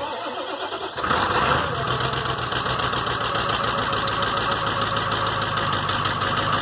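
Ford pickup's diesel V8 cold-starting at about 15 °F: the starter cranks for about a second, then the engine catches and settles into a steady idle.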